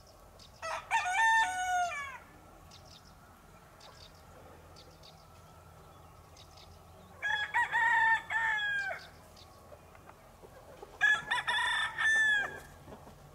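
A rooster crowing three times, each crow lasting about a second and a half and dropping in pitch at the end.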